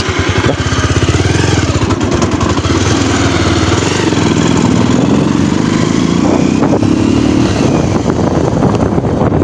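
Motorcycle engine pulling away and accelerating, its revs rising and dropping back more than once as it gathers speed.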